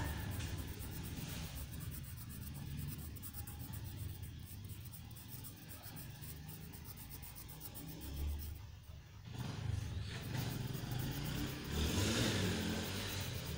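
Felt-tip marker rubbing on paper as a thick stroke is filled in, loudest near the end, over low steady background noise.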